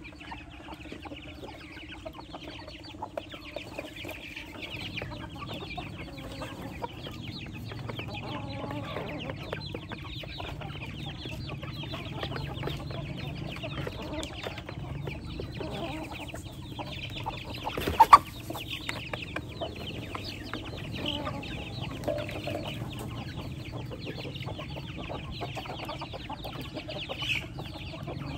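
A flock of chickens and chicks clucking while they feed, with many quick ticks of pecking and one sharp loud knock about two-thirds of the way through, over a steady low hum.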